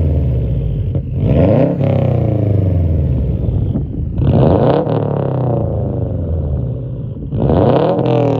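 Subaru WRX STI's turbocharged EJ257 flat-four free-revved three times through its modified exhaust, each rev climbing quickly and then falling slowly back toward idle.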